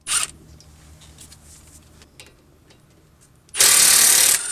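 Milwaukee M18 Fuel 3/8-inch cordless impact wrench running on the 12 mm caliper pin bolts of a front disc brake. It gives a brief burst at the start and a burst of about a second near the end, with a few small clicks between.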